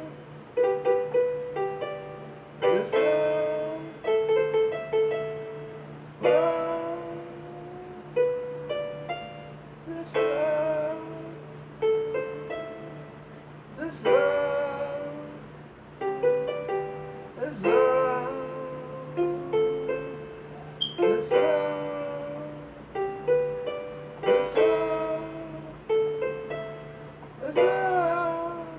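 Portable electronic keyboard played with both hands: a chord struck about every two seconds with shorter single notes between, over a steady low hum.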